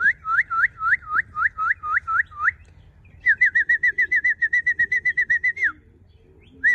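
A songbird singing a loud whistled song: a run of about ten slurred notes, a short pause, then a faster run of shorter notes that ends in one falling note.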